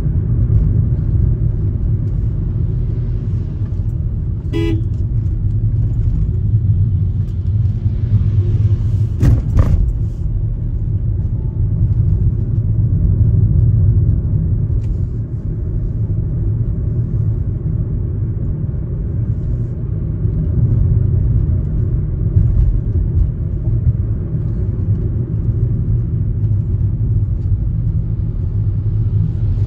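Steady low rumble of a car driving along a road. A short horn toot comes about four and a half seconds in, and a couple of sharp knocks about nine seconds in.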